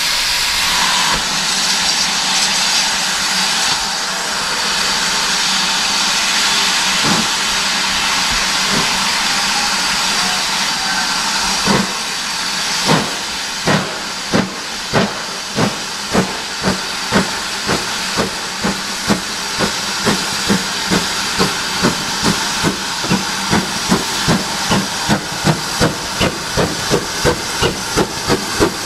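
GWR 4575-class small prairie tank engine 5541 working a train. Steam hisses steadily for the first twelve seconds or so. The chimney exhaust beats then set in and quicken, from about three every two seconds to about two and a half a second, as the engine works harder and gathers speed.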